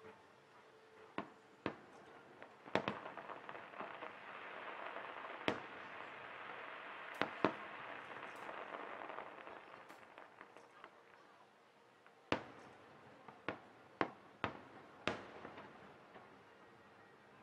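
Aerial firework shells bursting: about a dozen sharp bangs at irregular intervals, some in quick pairs. A steady hiss fills the middle stretch, between about three and eleven seconds in.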